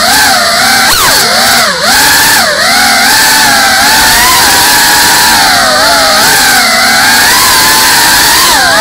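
Motors and propellers of a GEPRC CineLog 35 cinewhoop drone whining loudly in flight. The pitch swings up and down with the throttle, with several quick dips and one sharp drop about a second in, then holds steadier.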